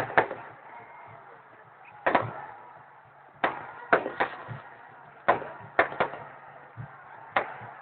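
Firecrackers exploding one after another: about a dozen sharp bangs at uneven intervals, several in quick pairs, each with a short echoing tail, over a low background din.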